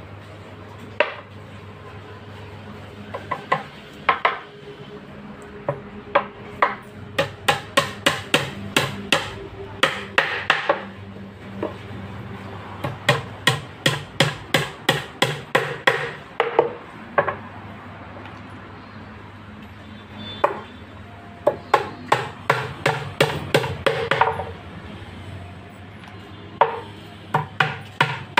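Hammer blows on wood, in runs of several quick strikes about three a second with short pauses between runs, over a steady low hum.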